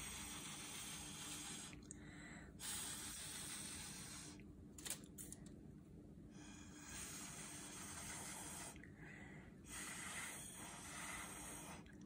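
Faint, breathy blowing through a plastic drinking straw onto wet acrylic paint. It comes in four long exhalations with short pauses between them for breath.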